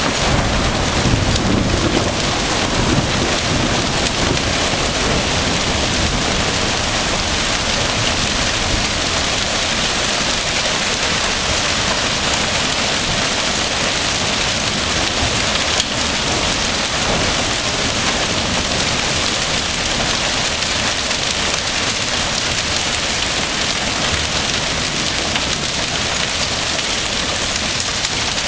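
Heavy hail and rain falling steadily in a dense, unbroken clatter, with a low rumble in the first few seconds.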